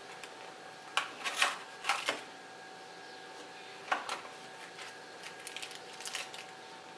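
Cardboard Beyblade box being opened by hand, with a few loud scraping rustles of cardboard about a second in and again near four seconds. After that comes lighter crinkling of a small plastic parts bag.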